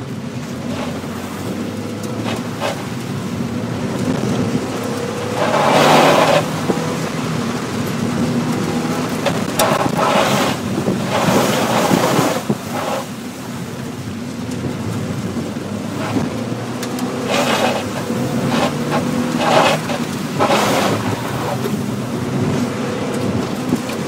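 Mazda Miata's four-cylinder engine revving up and down through an autocross run, heard from inside the cabin. Loud rushes of water spray from the tyres through standing water hit the car several times, the biggest about six seconds in and again around ten to twelve and seventeen to twenty-one seconds.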